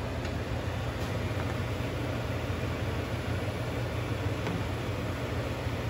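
Shrimp cooking in butter in a non-stick skillet, a steady low sizzle under a constant low hum, with a few faint scrapes and taps of a plastic spatula stirring them.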